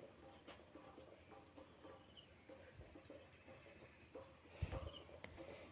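Faint steady chirring of crickets, with a soft low thump about four and a half seconds in.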